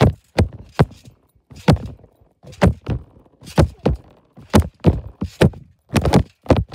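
Repeated dull thumps, mostly in pairs, about one pair a second.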